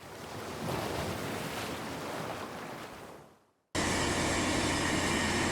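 Ocean waves washing, fading in and then out over about three seconds. After a brief silence, a steady low background hum starts suddenly.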